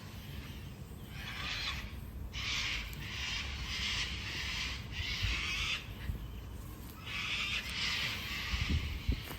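A lens sealing wipe rubbed over a plastic headlight lens, about six hissing strokes with short gaps between them, the longest near the end, over a low rumble.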